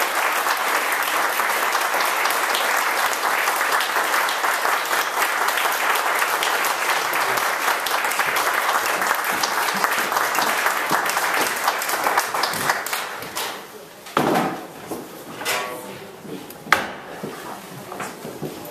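Audience applauding steadily, the clapping dying away about thirteen seconds in. After that come low voices and a sharp knock.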